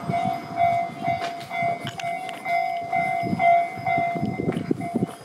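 Railway level-crossing warning bell ringing steadily, about two strikes a second, over a low irregular rumble.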